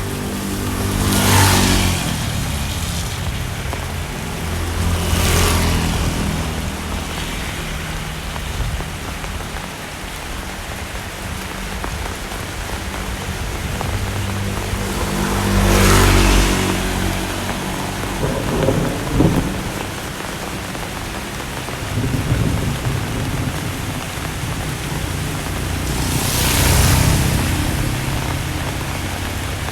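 Heavy rain falling steadily. Four vehicles pass by in turn, each a rising and falling swell of tyre spray hissing through water over an engine note.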